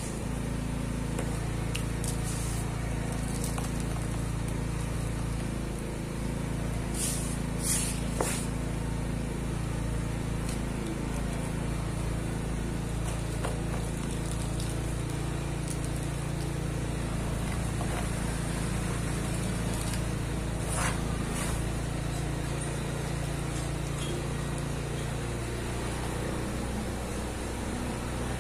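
Dry sand and cement powder being rubbed by hand and trickled from the fingers, with a few brief crunches about seven to eight seconds in and again about twenty-one seconds in. A steady low machine hum runs underneath and is the loudest sound.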